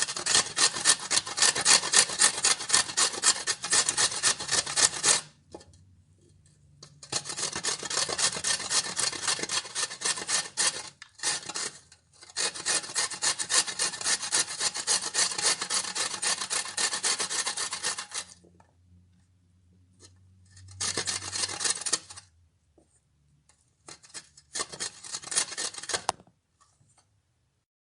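A vegetable being grated: rapid rasping strokes against a grater, several a second. They come in runs of a few seconds, with short pauses between runs and a final short burst before the sound stops.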